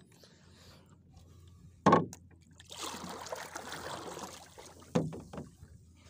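Two sharp knocks of fishing gear against a small wooden outrigger boat, about two and five seconds in, the first the louder. Between them is a rough hissing, rustling stretch of about a second and a half.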